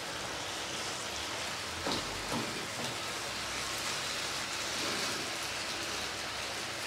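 Chicken strips and sliced vegetables sizzling steadily in a frying pan as they brown, stirred with a silicone spatula that knocks lightly against the pan a few times about two to three seconds in.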